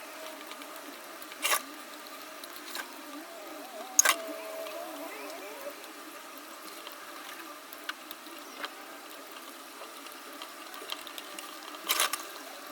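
A few sharp clicks or taps, the loudest about a second and a half in, about four seconds in and near the end, with fainter ticks between, over a steady low hiss with faint wavering tones.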